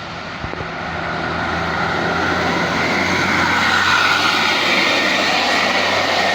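Tour bus engine approaching and passing close, getting steadily louder over about four seconds, with a whine that drops in pitch as it goes by.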